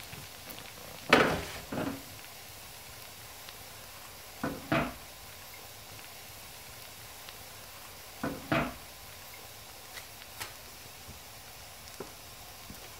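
Three pairs of knocks, each pair a fraction of a second apart, coming about every three and a half seconds over a faint steady hiss; a few faint ticks follow near the end.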